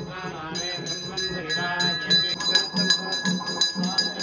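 A temple puja bell rung continuously in quick strokes, with a short break just after the start, over voices chanting. A low beat about twice a second comes in about halfway through.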